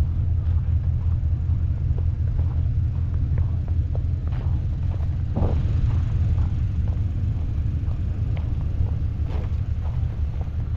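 A vehicle engine idling: a steady low rumble with a few faint clicks and knocks over it.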